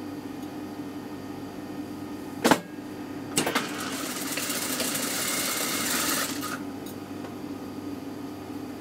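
Toyota flatbed sewing machine stitching a seam. A steady hum runs underneath, a sharp click comes about two and a half seconds in, and then the machine runs in a fast, even chatter for about three seconds before stopping.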